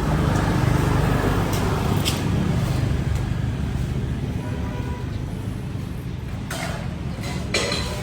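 An engine running steadily at low speed, with a few short clicks and hisses about two seconds in and again near the end.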